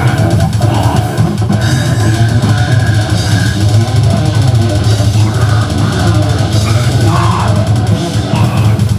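Live heavy metal band playing loud: distorted guitars and a pounding drum kit under a vocalist's microphone vocals, steady and unbroken.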